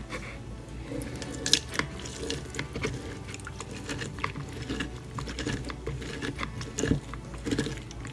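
Lemon halves being pressed and twisted by hand on a plastic citrus reamer: irregular squelching and scraping of the fruit against the ridged cone, with juice running into the bowl.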